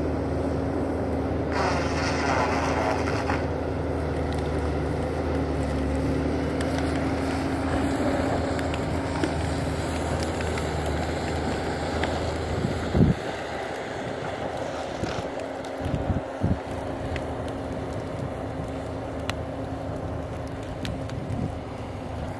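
Diesel engine of a Bobcat compact track loader running steadily under load while it skids logs with a rear-mounted grapple. A sharp knock comes about halfway through and a few thuds a few seconds later, after which the engine drone is weaker.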